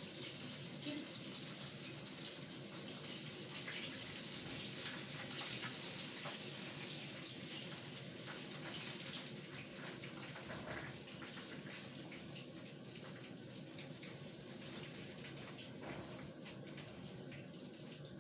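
Chicken pieces frying in hot oil: a steady sizzle with fine crackles, slowly getting quieter.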